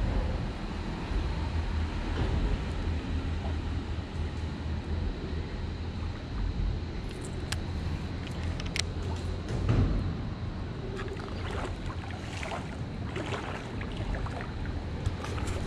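Steady low rumble under a bridge. From about seven seconds in there are scattered sharp clicks and knocks as a baitcasting rod and reel are handled.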